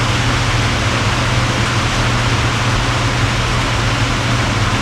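Steady, even hiss-like noise with a constant low hum underneath, the kind of continuous background a running fan or similar machine makes; it does not change.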